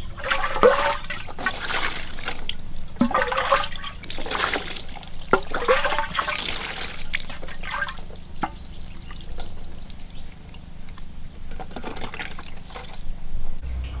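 Water splashing and dripping onto a metal tray as whole raw fish are rinsed and rubbed by hand, in several bursts over the first seven seconds and again near the end.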